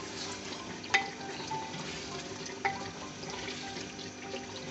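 Chicken curry sizzling and bubbling in a clay handi as it is stirred, with two sharp knocks, one about a second in and one near the three-second mark.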